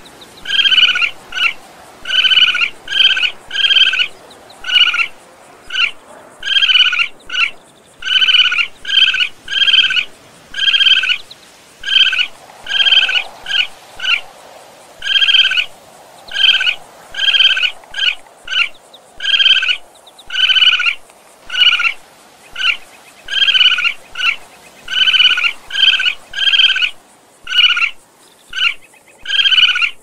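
Raccoon chittering: a long run of short, high calls repeating about twice a second, with a few brief pauses.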